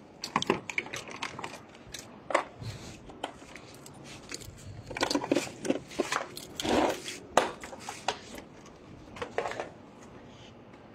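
Irregular clicks and light clattering of small hard objects being handled, busiest about five to seven seconds in.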